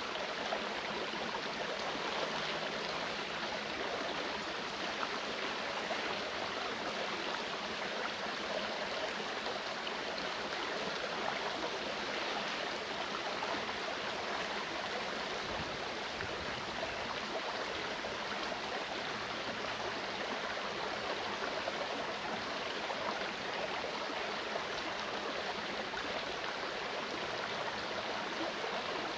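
Clear mountain stream flowing over rocks: a steady babble of running water.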